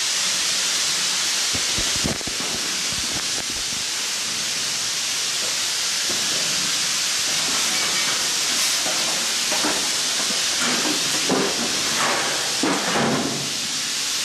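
A steady hiss, strongest in the high range, holding an even level throughout, with a few faint brief rustles in the second half.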